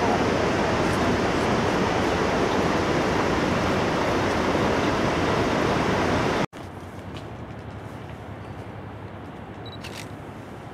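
Steady travel noise from inside a moving tour bus, engine and road together. It cuts off abruptly about six and a half seconds in, leaving quieter background noise with a few sharp clicks.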